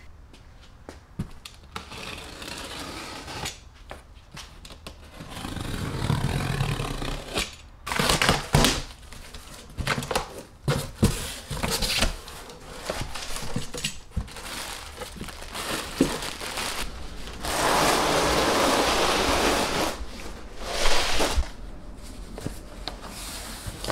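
Cardboard shipping boxes being handled: scraping and crumpling cardboard with scattered knocks, and a steady scrape of about two seconds some 17 seconds in.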